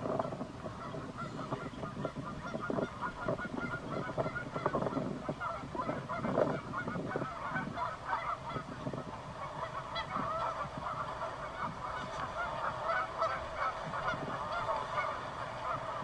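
A flock of birds calling without pause: many short, overlapping calls, growing busier after about ten seconds.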